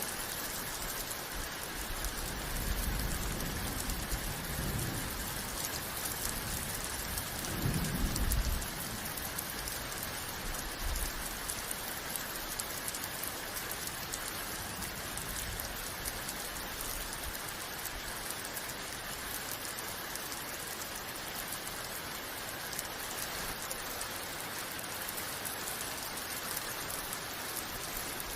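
Steady rain, with low rumbles of distant thunder in the first part: a longer one a few seconds in and a stronger, shorter one about eight seconds in.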